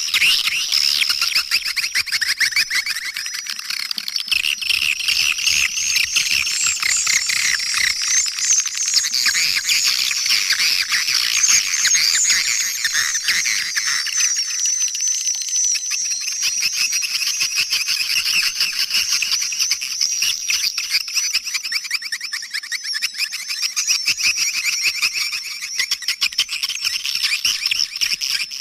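Dense chorus of swiftlets twittering: rapid, high chirps overlapping without a break. It is a swiftlet lure call ('suara panggil'), played at a swiftlet house to draw the birds in to roost and nest.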